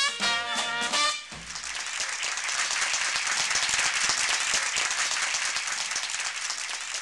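A Dixieland jazz band with trumpet and trombones plays the last notes of a tune and breaks off about a second in. Audience applause follows and runs steadily.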